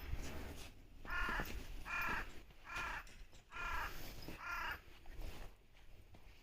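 A crow cawing five times in a steady series, the calls about a second apart.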